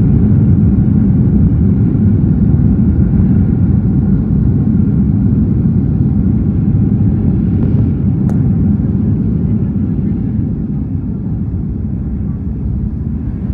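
Airliner cabin noise on the runway after landing: a loud low rumble of engines and wheels that slowly gets quieter as the aircraft slows. A short click about eight seconds in.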